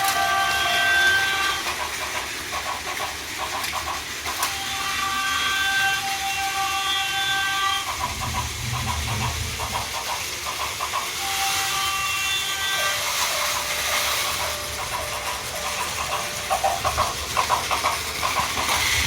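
Several battery-powered Plarail toy trains running on a plastic track layout, motors whirring and wheels clicking steadily. Electronic sound-effect tones from the toys sound on and off, each held for one to three seconds.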